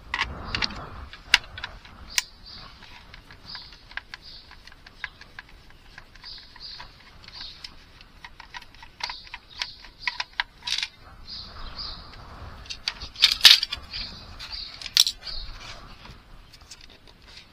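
Scattered small clicks, taps and clatters of a screwdriver, screws and the plastic casing of a PS3 Slim power supply being handled during disassembly, with a louder run of knocks about three quarters of the way through.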